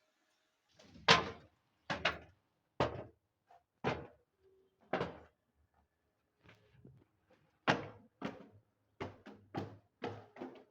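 Glass bottles smashing: about a dozen sharp crashes at uneven intervals, each dying away quickly, the loudest about a second in and again near eight seconds.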